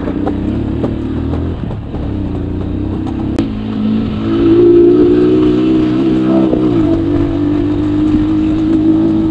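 Small motorcycle engine running as it is ridden on a dirt track; the revs rise about three and a half seconds in and stay up, dipping briefly once before holding steady.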